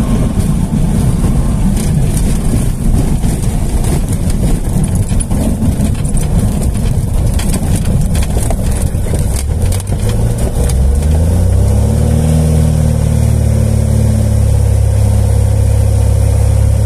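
Small propeller plane's engine running as the plane rolls along a bumpy dirt airstrip, heard as a rough, jittery rumble. About ten seconds in, the engine pitch rises and settles into a steady drone.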